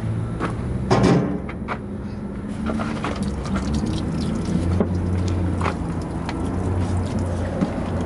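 Soapy water squirted from a plastic jug onto a semi-truck tire's tread, with clicks and knocks from handling the jug and one sharp knock about a second in, over a steady low mechanical hum.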